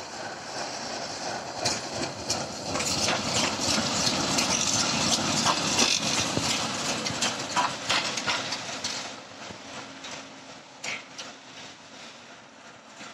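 ChME3 shunting diesel locomotive passing close by: its six-cylinder diesel engine running and its wheels rolling over the rails, with scattered sharp knocks as the wheels cross rail joints. The sound grows to its loudest around five seconds in as the locomotive goes past, then fades as it moves away.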